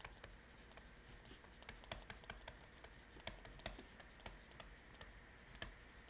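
Faint, irregular tapping and clicking of a stylus on a tablet screen during handwriting, with the clicks coming most thickly in the middle.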